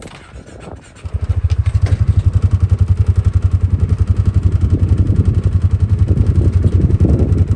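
Side-by-side utility vehicle's engine starting about a second in and then idling with a steady, rapid low throb close by.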